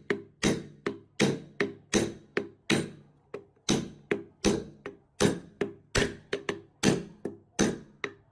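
A hammer striking metal again and again, about two to three blows a second, each blow ringing briefly. There is a short pause about three seconds in.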